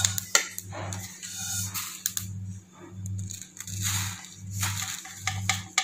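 Dry-roasted cumin seeds being tipped and slid out of a metal kadai onto a plate: a dry, rattling hiss of pouring seeds, with sharp clicks and knocks of the pan.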